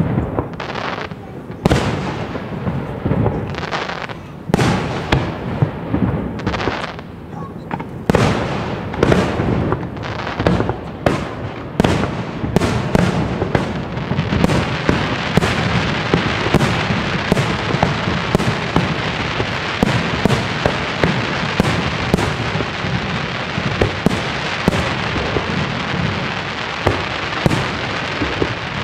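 Large professional Class F4 display fireworks: aerial shells bursting in a rapid, irregular series of sharp bangs. From about halfway through, a dense continuous noise fills in under the bangs as the display thickens.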